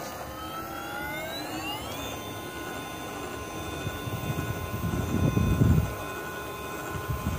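1750kv TenShock 906 six-pole unsensored brushless motor driving an RC rock crawler at slow crawl speed. Its electric whine rises in pitch over the first two seconds, then holds steady. A low rumble swells and fades around the middle.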